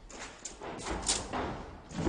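Rustling movement, then a dull thud near the end as a person drops onto a padded stunt crash mat.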